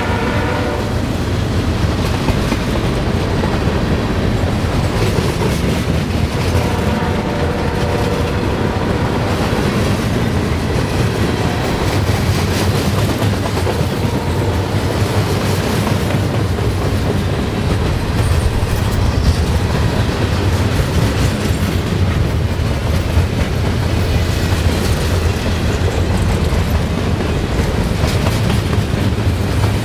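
A loaded freight train's cars, flatcars carrying steel coils, rolling past close by: a steady heavy rumble with the clickety-clack of wheels over the rail joints.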